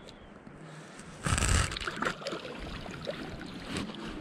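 Denim clothing rubbing and rustling against the camera's microphone, with a loud scuffing burst about a second in, followed by small clicks and rustles.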